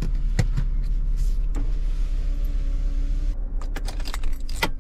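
Camper van engine idling steadily, with a few clicks and rattles from the pleated windshield sunshade. Near the end comes a quick run of clicks as the ignition key is turned, and the engine is being shut off.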